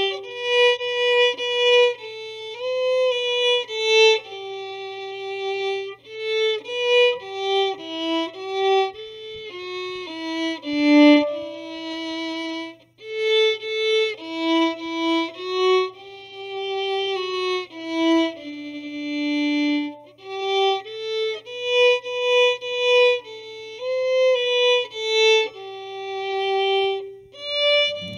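Instrumental music: a slow single-line violin melody played note by note over a steady low hum, with a brief pause about halfway through.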